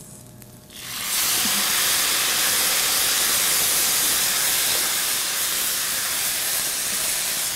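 Wine hitting a hot pan of butter-toasted risotto rice, bursting into a loud, steady sizzling hiss of steam about a second in, as the wine is stirred into the rice.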